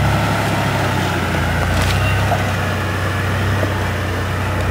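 Lifted Toyota pickup's engine running steadily at low revs as the truck crawls up a rock, with a couple of faint cracks.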